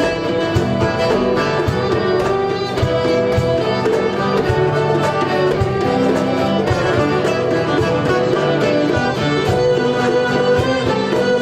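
Instrumental folk music: a fiddle-like bowed melody over plucked strings, with a steady percussive beat.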